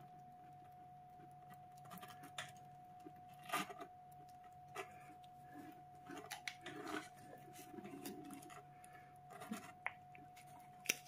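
Young kitten eating moist crumbled food off a cardboard flap: faint, irregular licking and chewing clicks, over a faint steady hum.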